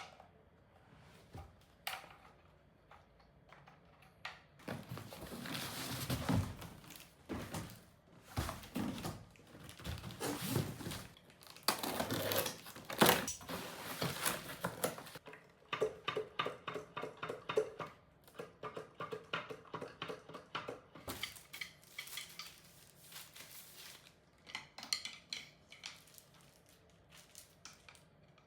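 Unpacking an electronic drum kit: packaging rustling, with irregular knocks and clinks of metal hardware being handled, and a run of quick clicks partway through.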